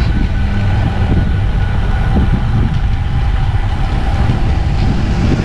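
Wind buffeting the microphone and road rumble while riding a road bicycle, a loud steady low rumble with a faint steady whine above it.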